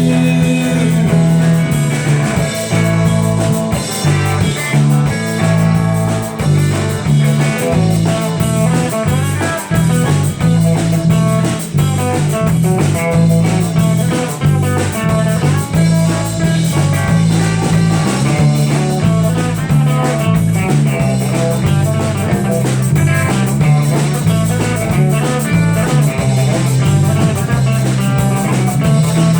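A band playing an instrumental break between verses. Electric guitar leads over a drum kit and steady low bass notes.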